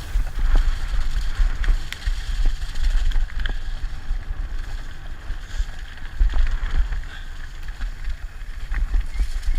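Wind rumbling on the camera microphone during a mountain-bike ride, with scattered sharp clicks and rattles from the bike on the trail.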